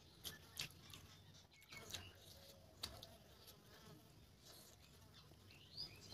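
Faint wet eating sounds of a mouth biting and chewing a piece of hilsa fish curry: lip smacks and sucking, with a few sharp smacks standing out.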